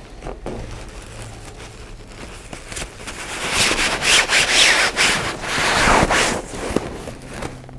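Stuff sack rustling as gear is pushed down into it and the sack is squeezed and handled. The rustle grows loudest in the middle of the stretch and eases off near the end.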